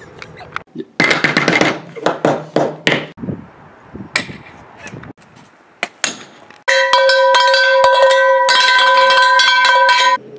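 A plastic yo-yo being battered: a quick run of sharp knocks and clatters, then a cast iron skillet bashed down on it again and again, giving loud metallic banging over a steady ringing tone for the last few seconds.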